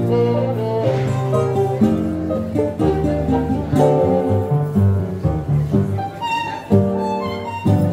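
Tango trio of violin, acoustic guitar and electric keyboard playing live, with held bass notes under the violin melody.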